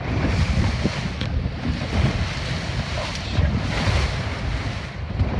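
Strong wind buffeting the microphone in a heavy low rumble, over choppy seawater rushing and splashing past a small open powerboat's hull. The water hiss surges about two seconds in and again in the middle.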